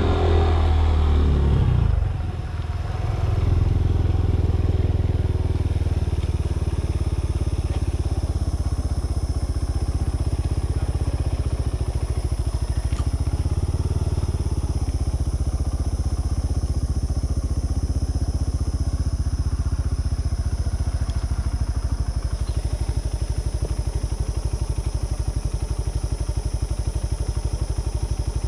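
A vehicle engine running, easing off about two seconds in and then running steadily at a low, even pace.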